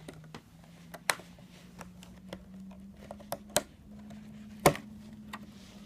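A few scattered sharp clicks and light taps of objects being handled, over a low steady hum.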